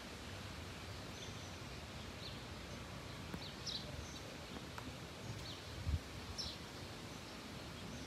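Small birds chirping: short high notes about once a second over a faint steady low rumble. A brief low thump comes about six seconds in.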